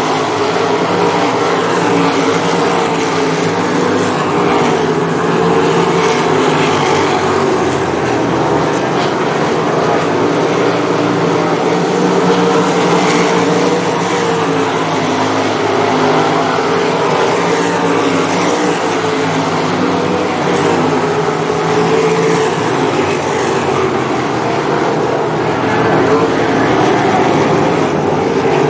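Several 305 sprint cars' small-block V8 engines running together on a dirt oval. It is a steady, loud mass of overlapping engine notes that waver up and down in pitch.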